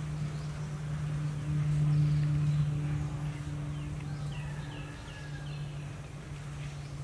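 A steady low mechanical hum, like a motor running, with a quick run of five short, high, falling chirps about four seconds in.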